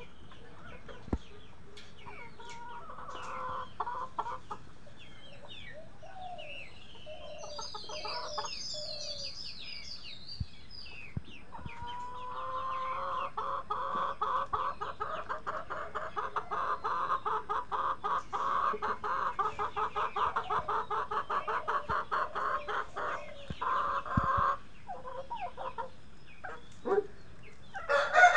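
Black game-fowl chickens clucking: a few short calls early on, then from about twelve seconds in a long run of rapid, evenly repeated clucks lasting around ten seconds. A louder call, a rooster starting to crow, begins right at the end.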